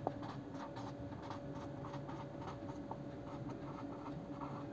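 A marker pen writing on a whiteboard: a quick run of short scratchy strokes as words are written out. A faint steady hum sits underneath.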